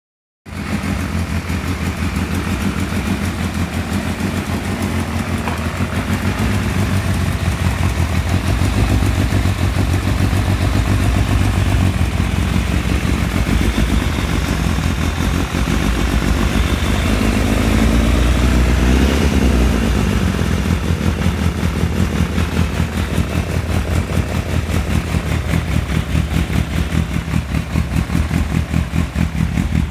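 A motorcycle engine running on its first start, idling with a steady beat. Its revs swell briefly about two-thirds of the way through, then it settles back to a pulsing idle.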